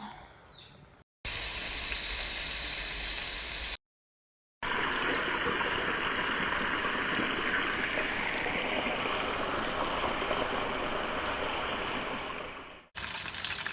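Seasoned flour dough sizzling as it fries in hot oil: a steady sizzle in two stretches, broken about four seconds in by a short cut of dead silence.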